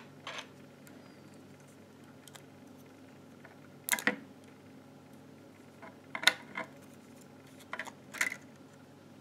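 Small clicks and handling noises from unplugging connectors on a digital microscope's circuit board, worked with fingers and a plastic pry tool. There is one click about four seconds in, then several more close together in the last three seconds.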